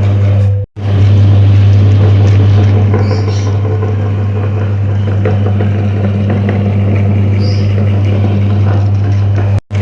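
Electric meat grinder running steadily with a strong low hum and light crackling as it grinds bars of soap. The sound drops out for an instant twice, once just under a second in and once near the end.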